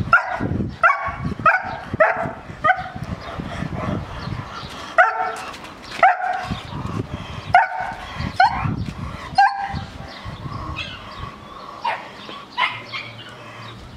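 Seven-month-old German Shepherd barking repeatedly: a quick run of sharp barks at first, then single barks about a second apart, growing fainter near the end.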